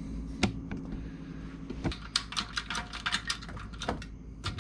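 Sharp clicks and taps from hands working at a car door's hinge pillar: a few single knocks, then a quick, uneven run of light clicks lasting about a second and a half, over a steady low hum.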